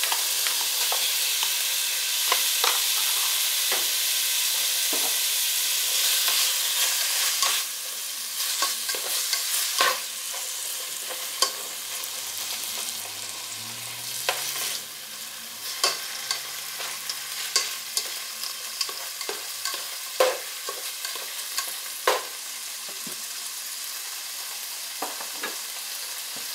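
Sliced beef sizzling in hot oil in a pot, with the clicks and scrapes of a spatula stirring it. The sizzle is loudest at first and drops to a quieter hiss about seven seconds in.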